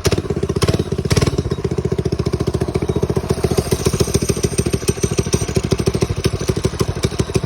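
Mini bike's small engine running steadily with rapid, even firing pulses, freshly started after a rebuild.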